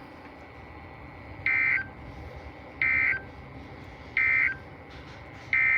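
NOAA Weather Radio SAME digital data bursts: three short bursts about 1.4 s apart, the end-of-message code closing the severe thunderstorm warning. Near the end a longer burst begins, the header of the next alert, over faint radio hiss.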